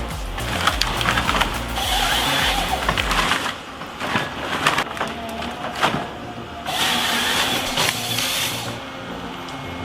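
Chainsaw cutting wood in bursts, its engine revving up and easing off, with a few sharp knocks of wood about four to six seconds in.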